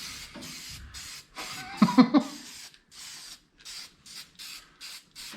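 Paint being sprayed onto a steel roll cage in hissing bursts: a couple of longer passes, then quick short puffs about two a second. A brief vocal sound about two seconds in.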